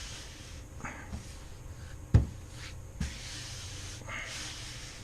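A hand rubbing and sliding over a body-filled truck panel, feeling for high and low spots, with a sharp knock about two seconds in and a lighter one about a second later.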